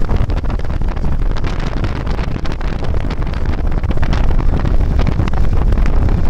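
Meteor-type hydrofoil running on its diesel engines with a steady low rumble, heavily buffeted by wind on the microphone.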